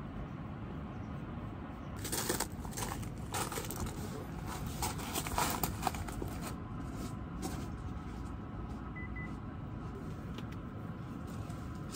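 Rustling with small clicks and knocks from movement on a camping chair and a cot's bedding, from about two to six seconds in, over a steady low background noise.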